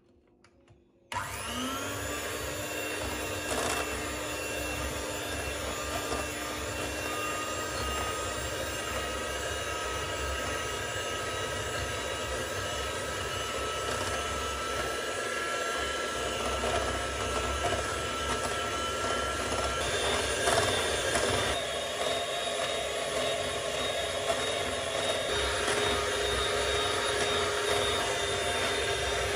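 Vacuum cleaner switched on about a second in and running steadily with a high whine. Its tone changes about two-thirds of the way through.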